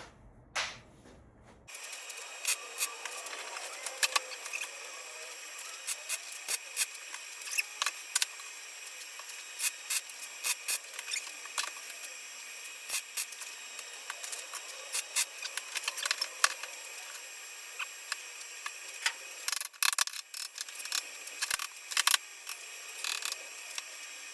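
Welding arc crackling in many short, irregular bursts, like tack welds being laid on angle iron, over a steady hiss with a faint high whine.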